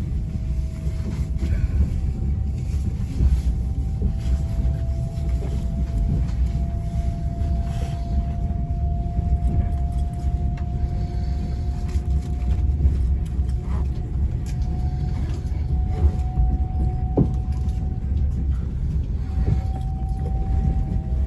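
Train running, heard from inside the carriage: a steady low rumble with a faint whine that climbs slowly in pitch, and a few light clicks and knocks.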